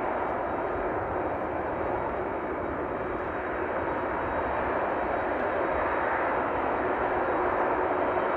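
Distant Boeing 767 freighter's jet engines during the landing rollout: a steady rushing jet noise that swells a little in the second half as reverse thrust is applied.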